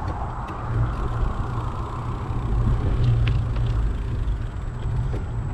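Bicycle riding along a paved road: a steady low rumble of tyres on the asphalt and wind on the microphone.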